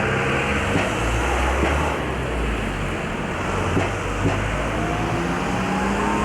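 Train running on the rails: a steady drone with a whine that slowly rises in pitch, and a few sharp clicks of the wheels over rail joints.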